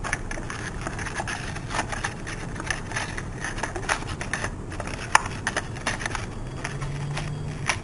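Plastic blister pack of a Hot Wheels car crinkling and cracking as it is pried and torn open by hand, with irregular clicks and one sharp crack about five seconds in.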